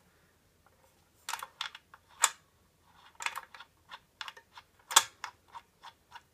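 Light metallic clicks and ticks from the blade wrench working the arbor bolt of a Bosch CS10 circular saw, the wrench hard to keep seated on the bolt. The clicks start scattered, then come several a second, with two louder clacks about two and five seconds in.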